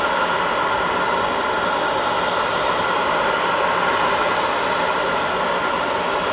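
Four Rolls-Royce Trent 500 turbofans of an Airbus A340-600 at taxi thrust: a steady jet whine over an even hiss.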